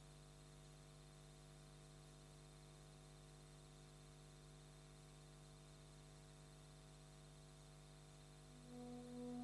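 Near silence with a steady low electrical hum. Near the end, music begins to fade in with long held tones.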